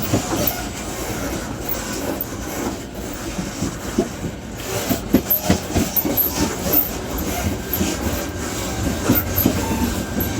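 Running noise at the gangway between two coaches of a moving passenger train: a steady rumble with irregular knocks and rattles from the car connection, coming thickest about halfway through. The jolting comes from a rough stretch of track.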